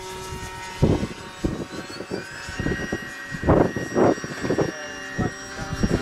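Radio-controlled model aeroplane's motor running at a steady pitch. Gusts of wind buffet the microphone with irregular low rumbles throughout.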